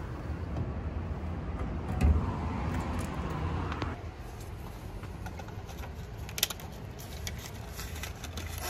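Steady low rumble of road traffic, with a dull thump about two seconds in and a short sharp click past the middle.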